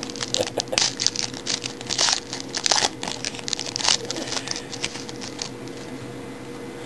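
Wrapper of a pack of hockey trading cards being torn open and crinkled by hand, a run of sharp irregular crackles that stops about five and a half seconds in.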